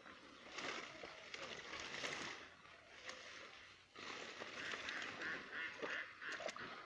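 Waterfowl calling in a quick run of short honks, about three a second, starting a little after halfway. Under it is faint rustling of a plastic tarp being handled.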